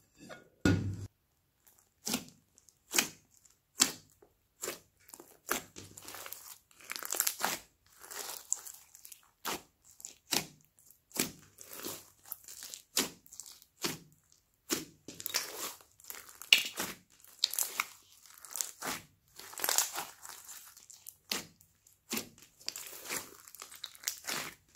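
Hands squeezing, stretching and folding a large mass of glossy slime mixed with foam beads: a run of short, wet squishing sounds, about one or two a second.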